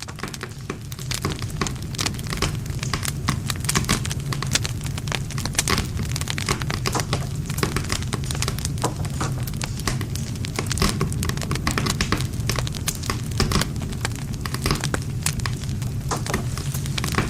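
Wood campfire burning, with dense, irregular crackles and sharp pops of the burning wood over a steady low rush of the flames.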